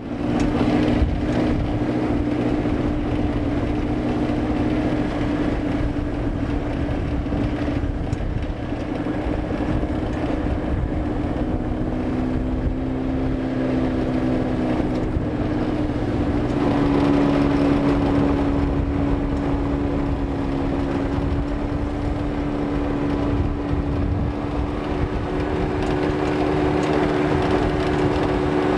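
Off-road vehicle engine running steadily over a rumbling ride noise, its note shifting to a slightly different pitch a little over halfway through.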